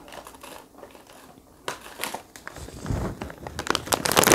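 Crinkling and rustling of a plastic snack packet being handled and opened, a few scattered crackles at first, then dense crinkling near the end.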